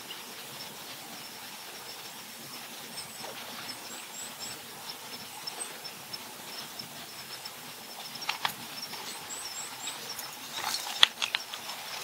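Crested kingfisher calling with sharp, harsh notes: a couple about eight seconds in, then a louder cluster near the end. Underneath runs a steady high-pitched pulsing, with a few faint, thin high chirps.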